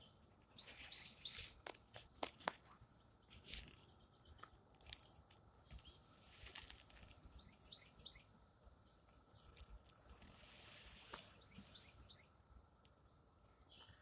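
Faint scattered clicks and a few short hissing bursts, as a finger nudges a periodical cicada on a vinyl surface, over a faint steady high drone from a distant periodical cicada chorus.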